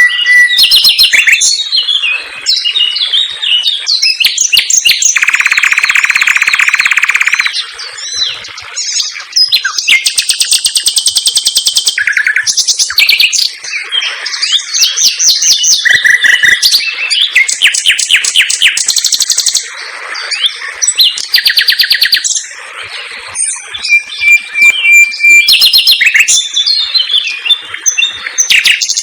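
Common nightingale singing loudly and without a break, a varied song of rapid-fire repeated notes and fast trills. A long harsh buzzy phrase comes a few seconds in, and pure held whistles come near the start and again about three quarters of the way through.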